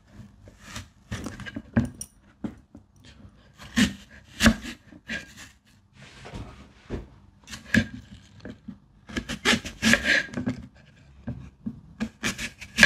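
Fruit being cut and handled for a fruit salad: irregular taps, knocks and scrapes, in clusters every second or so.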